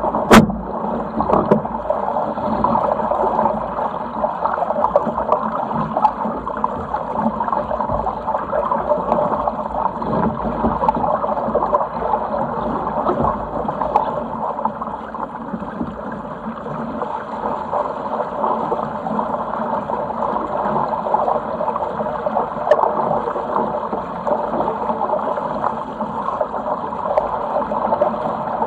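Water rushing and splashing along the hull of a Sigma 8 metre racing cruiser under sail, a steady wash with no let-up. A single sharp knock comes about half a second in.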